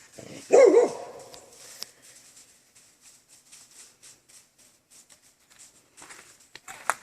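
A dog barks once, loudly, about half a second in, followed by faint scattered ticks and scuffs and a sharp click near the end.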